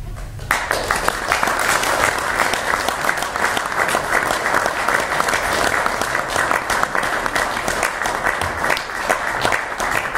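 Audience applauding: many people clapping, starting suddenly about half a second in and continuing steadily.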